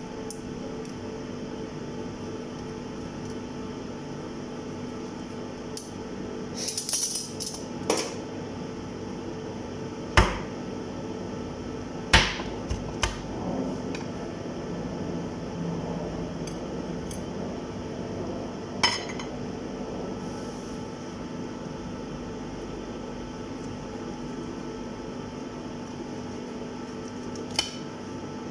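Kitchen clatter: scattered knocks and clinks of cookware and utensils over a steady low hum, the sharpest knocks about ten and twelve seconds in.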